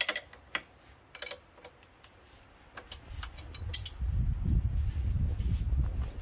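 Open-end wrenches clinking on a steel fuel-line fitting at the fuel rail as it is loosened: a handful of sharp metal clicks, then a low rumble that is the loudest part, from about halfway in.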